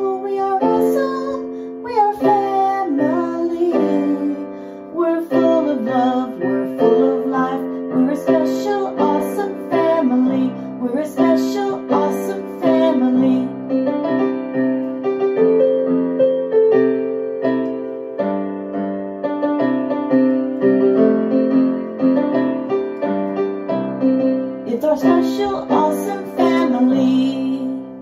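Music: a keyboard-led song with singing.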